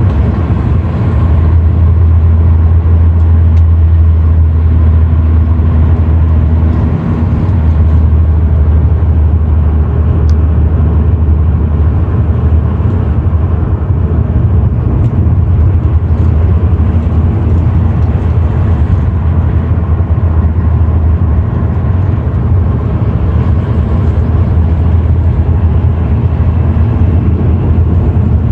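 Car engine running steadily: a loud, even low rumble with faint scattered ticks.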